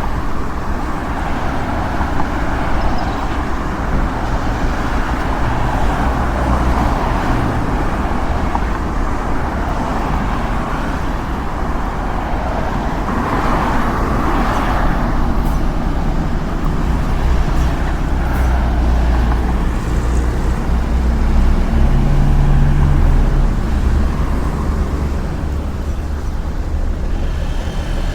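Street traffic: a steady wash of cars and heavier vehicles going by, with a low engine rumble. One vehicle passes louder about halfway through.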